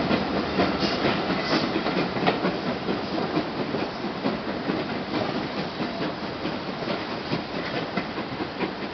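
Steam train's carriages rolling over the rails with a clickety-clack of wheels on rail joints, slowly fading as the train moves away.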